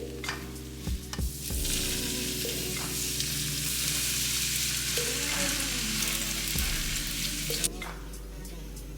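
Food sizzling as it fries in a pan: a loud, even hiss that starts about a second and a half in and cuts off abruptly near the end, with a few short knocks just before it. Background music with sustained tones runs underneath.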